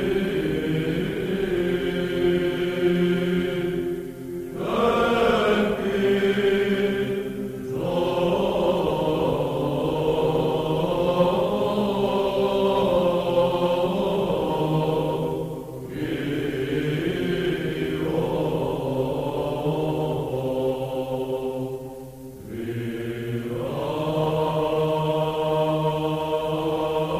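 Background music of slow vocal chant: long held notes sung in phrases that break off briefly every few seconds.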